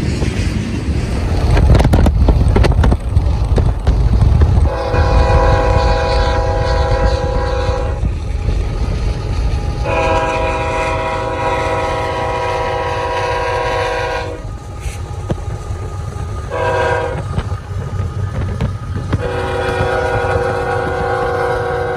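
A freight train's cars roll past with a low rumble. Then a diesel locomotive's air horn sounds the grade-crossing signal: two long blasts, a short one, and a final long blast still sounding at the end.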